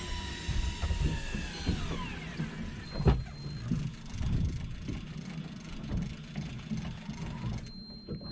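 Electric fishing reel's motor whining as it winds in line, its pitch falling as it slows and dying away about two seconds in, followed by a low rumble with a sharp knock about three seconds in.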